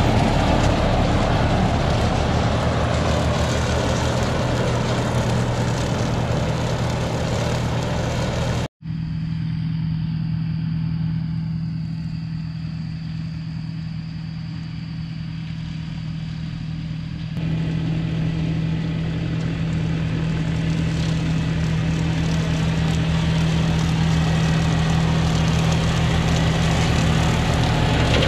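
Farm tractor's diesel engine running steadily, a constant low drone, typical of a tractor pulling a rotary mower through pasture. The sound cuts out for an instant about nine seconds in, is duller for about eight seconds, then turns brighter again.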